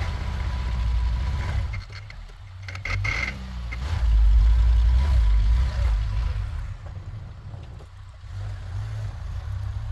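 Ford pickup truck's engine revving under load as it drives through deep snow, its street tires slipping on the frozen ground; loudest about four to six seconds in.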